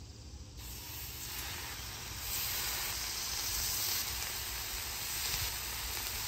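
Raw bacon strips sizzling as they are laid one after another onto a hot stainless steel griddle plate. The sizzle starts about half a second in and grows louder at about two seconds as more strips go down, then holds steady.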